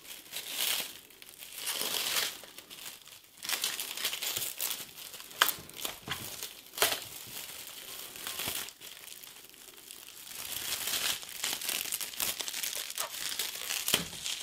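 Plastic cling film crinkling and rustling as it is peeled off a small RC car, coming in irregular bursts, with a few sharper clicks now and then.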